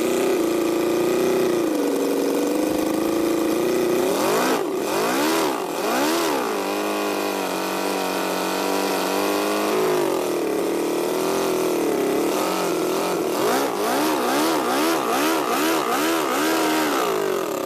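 Miniature scale-model V8 engine running steadily, then revved by hand in repeated throttle blips, its pitch rising and falling sharply. Over the last five seconds or so it is blipped in a fast run of short revs, about two a second.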